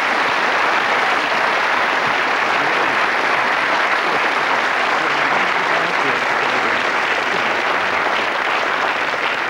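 Studio audience applauding in a steady round of clapping.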